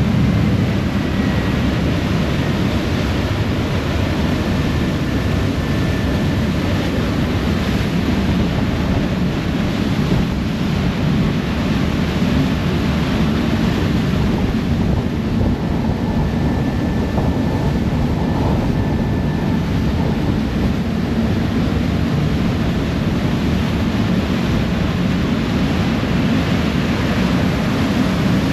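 Harbour ferry underway at speed: a steady low rumble of its engines under the rush of its wake churning at the stern, with wind buffeting the microphone.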